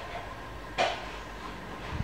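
Paintbrush stroking and dabbing on watercolour paper: three short swishes, the loudest about a second in, over a faint steady hum.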